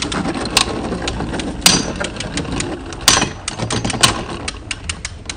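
Two Beyblade Burst spinning tops whirring and rattling against the plastic floor of a stadium, with several sharp clicks as they strike each other.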